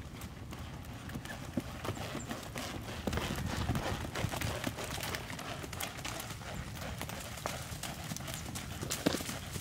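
Hoofbeats of a ridden horse moving quickly over loose dirt: a fast, steady run of dull thuds.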